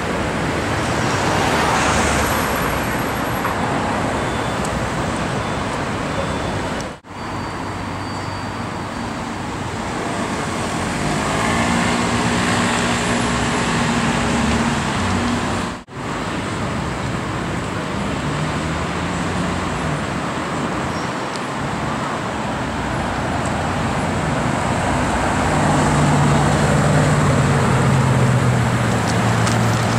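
Slow-moving city street traffic, with car engines running at low speed. Near the end a low engine note drops in pitch as the Bugatti Veyron pulls away.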